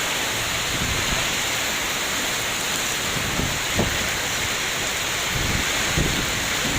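Heavy rain pouring steadily in a storm, a dense even hiss, with brief low rumbles from gusts of strong wind a few times.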